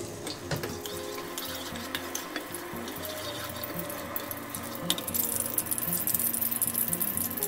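Wooden spatula stirring and scraping a thin layer of oil around a stainless steel wok as the oil heats, with a few light knocks against the pan. Quiet background music plays underneath.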